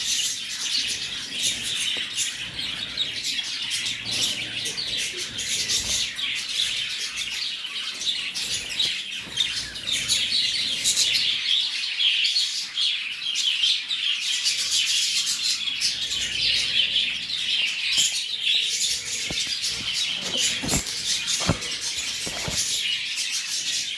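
Many lovebirds chirping at once in a continuous high-pitched chatter, with a few short knocks near the end.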